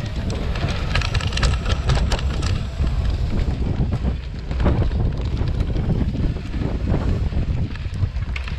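Wind rumbling on the microphone of a bike-mounted camera, over a cyclocross bike's tyres and frame rattling on a rough dirt trail, with a cluster of sharp clicks and rattles in the first couple of seconds.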